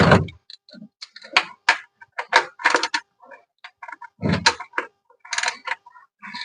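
Irregular metallic clicks and clinks of a ratchet and 13 mm socket being worked onto a truck's oil drain plug, with a heavier knock at the start and another about four seconds in.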